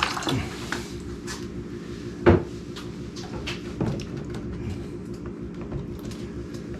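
Handling knocks and clicks as a toolbox sluice is moved and adjusted, with one sharp knock about two seconds in, over a steady low hum.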